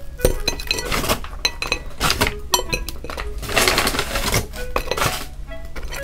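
Fried snacks being lifted out of a paper bag and set down on a ceramic plate: a run of light taps and clinks against the plate, with the paper bag rustling about halfway through.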